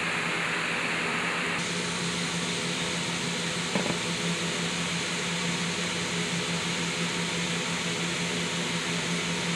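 Steady hiss with a low, even hum underneath: constant machine-like room noise. There is one brief knock a little under four seconds in.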